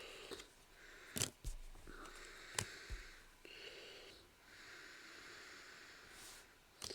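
Quiet handling of trading cards being sorted on a table: a few light sharp taps with soft rustling between.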